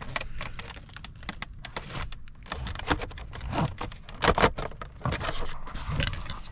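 Plastic clicks, taps and rattles as the front lens and bezel of a Ford Escape instrument cluster are handled and pressed back onto the cluster housing, with a cluster of louder clicks about four seconds in as a side clip is worked.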